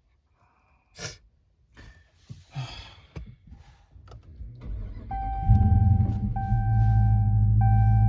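Dodge Charger R/T's V8 engine starting about five seconds in and settling into a steady idle, with a chime tone repeating about once a second over it.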